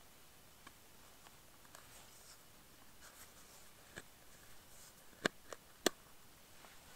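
Small tin being handled in the hands: light rubbing and scraping with scattered sharp clicks, a few faint ones at first and three louder clicks close together a little after five seconds in.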